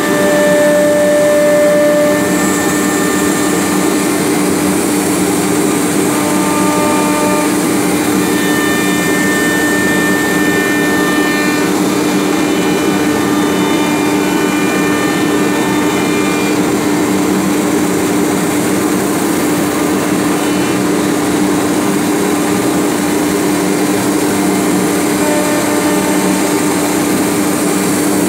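CNC router running steadily as it cuts wood cabinet panels, its spindle and dust extraction making a continuous loud noise with a constant hum. Higher whining tones come and go as the cutter works.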